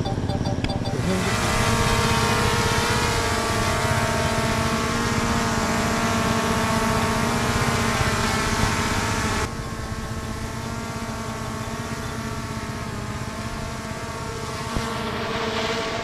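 A motor running steadily, with several held pitched tones over a broad hiss; the hiss drops away abruptly about nine and a half seconds in.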